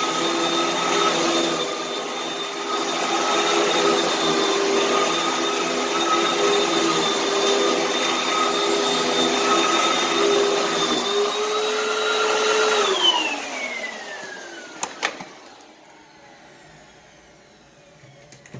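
Vacuum cleaner motor running steadily with a high whine, then switched off about 13 seconds in, its pitch falling as it winds down. A sharp click follows a couple of seconds later.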